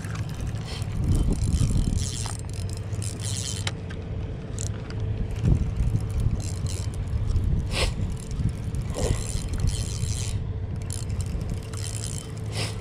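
Spinning reel being cranked by hand, its gears whirring in short spells as line is wound in, with a few sharp ticks. A heavy low rumble of wind on the microphone runs underneath and is the loudest part.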